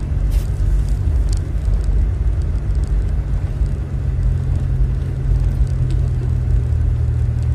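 A car's engine and tyres heard from inside the cabin as it drives along a dirt track: a steady low rumble, with a couple of light clicks in the first second and a half.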